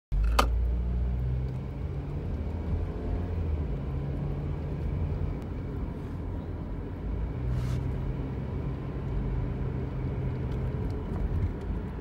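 Inside a Honda car's cabin while driving: a steady low rumble with a faint whine that fades in and out in long stretches. A single click sounds near the start.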